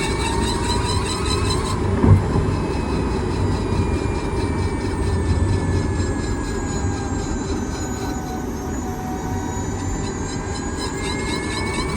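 Kia Niro EV driving with a steady low rumble and several high whining tones that slowly fall and then rise again. Near the start and end there is a fast, even grinding tick, with a single knock about two seconds in. This is the grinding noise of an unknown defect that the owner is asking about.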